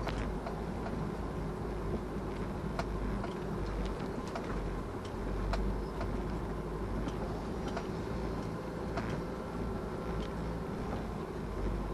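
A car on the move: steady rumble of engine and tyres on the road, with many short sharp clicks and ticks scattered throughout.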